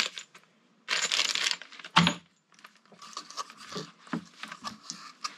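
Small clear plastic parts bag full of bolts crinkling and rustling in the hands, with a brief tearing-like rustle about a second in and a sharp click about two seconds in, then lighter rustling and small clicks as the parts are handled.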